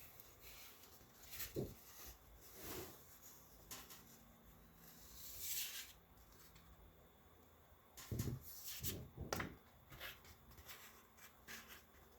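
Faint paper-handling noises: a magazine and an art page being moved and laid side by side, with scattered rustles and light knocks, a longer rustle about five seconds in, and a cluster of knocks about eight to nine seconds in.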